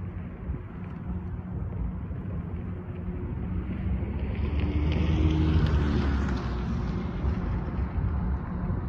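Diesel engines of a Loram rail grinder approaching from a distance, a steady low drone. About four seconds in, a swell of rushing noise rises, peaks and fades again by about seven seconds.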